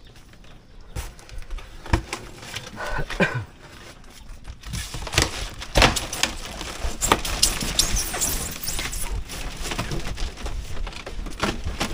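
Handling and unwrapping a plastic-wrapped styrofoam shipping box: plastic wrap crinkling, with scattered knocks and clicks. The crinkling gets busier from about halfway in.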